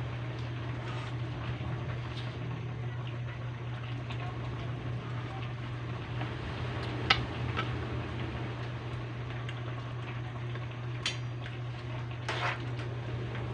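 Chicken sotanghon broth simmering in an aluminium pan on a gas burner: a steady bubbling hiss with a low steady hum under it. Near the end a spoon clinks against the pan a few times as it is stirred.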